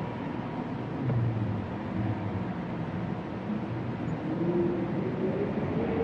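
Winter wind moaning: low, wavering tones that slowly rise and fall over a steady rushing of wind, one pitch climbing about two-thirds of the way through before sinking again.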